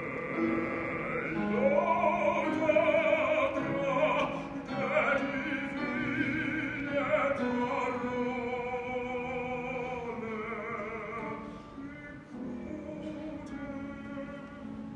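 Choir singing in several parts, holding sustained chords while some voices move against them. The singing grows softer about twelve seconds in.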